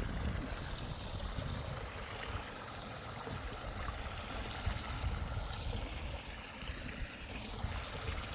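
Shallow mountain stream running steadily over stones.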